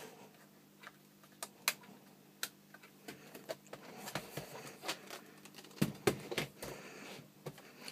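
Scattered light plastic clicks and knocks from handling an eMachines D620 laptop with its battery just refitted: the battery latch and case being worked, with a cluster of duller knocks about six seconds in as the machine is moved. A faint steady hum runs underneath.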